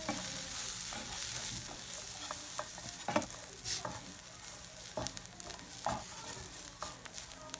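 Sliced onions, green chillies and garlic sizzling in oil in a nonstick frying pan, stirred with a wooden spatula that scrapes and knocks against the pan now and then. The turmeric and chilli powder just added is being roasted in the oil.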